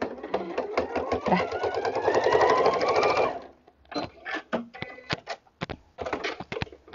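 Electric domestic sewing machine stitching through fabric and zipper tape, picking up speed, then stopping about three and a half seconds in. A run of separate clicks and taps follows as the machine and the work are handled.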